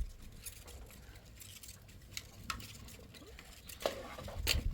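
Scattered light knocks and scrapes of objects being handled, with two louder knocks near the end.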